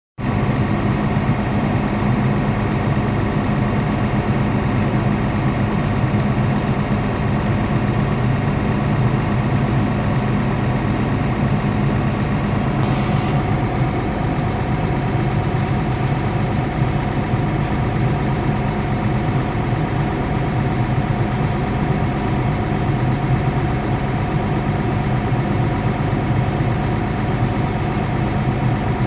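Caterpillar D6 bulldozer's diesel engine idling steadily, heard from inside its cab, with an even, unchanging hum.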